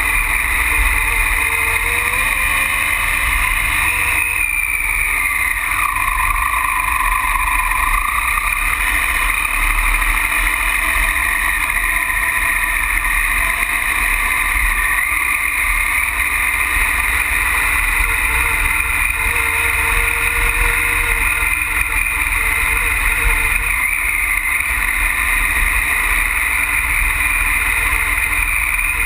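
Triumph Tiger Explorer adventure motorcycle riding a gravel track, its three-cylinder engine's pitch dipping and rising a few times with the throttle, under steady wind rumble on a camera mounted by the front wheel.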